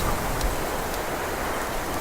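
Wind blowing through a cypress bush, a steady rushing hiss with uneven low rumbles.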